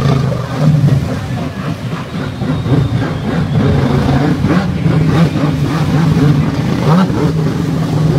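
Stand-up jet ski engine running hard and revving up and down as it is thrown around in a swimming pool, with its pitch rising sharply near the end.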